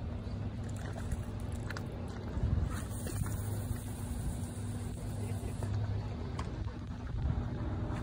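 Steady low rumble with a faint constant hum and an even hiss, plus a few faint clicks.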